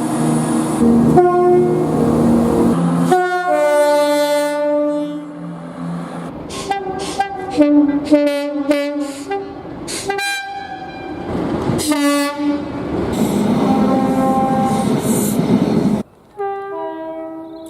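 Train horns sounding one after another in cut-together clips: long chord blasts and, in the middle, a run of short blasts, with the rumble of the passing trains underneath. The clips change abruptly several times.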